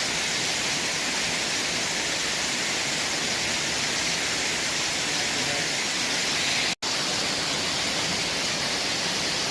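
Waterfall rushing: a loud, steady hiss of falling water, cutting out for an instant about seven seconds in.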